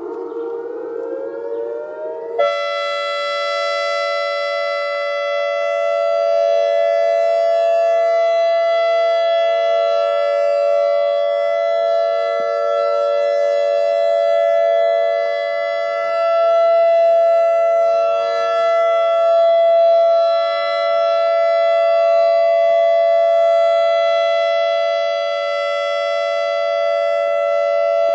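ACA Alertronic AR-1600 electronic outdoor warning siren sounding a steady signal. Its pitch climbs briefly, then jumps to a steady chord of several tones that holds unbroken.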